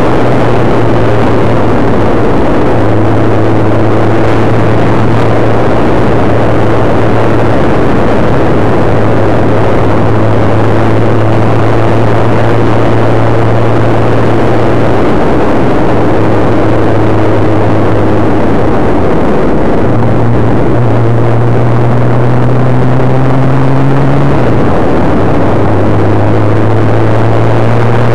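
Suzuki GSX-R1100 inline-four engine running steadily at road speed under heavy wind noise on the rider's microphone. The engine note steps up and down in pitch a few times as the throttle and gears change.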